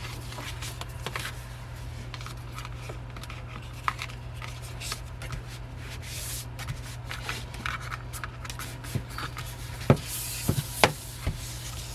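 Paper and card rustling and light handling noises as a K-pop album's photobook pages and printed inserts are turned and pulled out, with a few sharper taps near the end. A steady low hum runs underneath.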